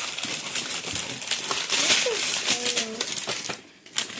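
Wrapping paper and toy packaging crinkling and tearing in quick rustles as a present is unwrapped, stopping briefly near the end.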